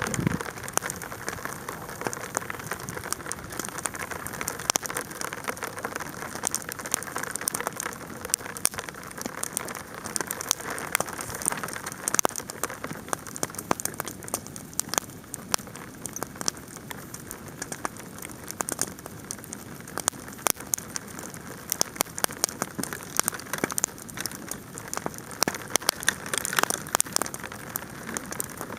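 Bonfire crackling with a dense run of sharp pops and ticks over a steady hiss, while hail patters down around it.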